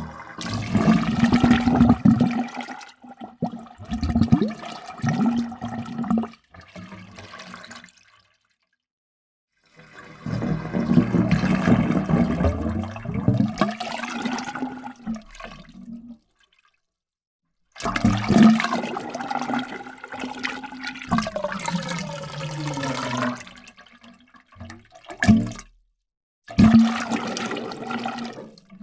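Water gurgling in a series of separate takes, each a few seconds of bubbling glugs, with silent gaps between them. The last two near the end are shorter.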